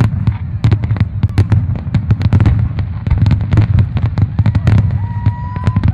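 Fireworks display: rapid, overlapping bangs of aerial shells bursting, several a second, over a continuous low rumble.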